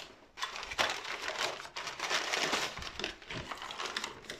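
Brown kraft packing paper crinkling and rustling in irregular bursts as it is pulled away by hand.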